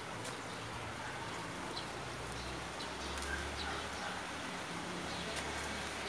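Outdoor ambience: a steady low hum under an even background hiss, with faint, scattered bird chirps.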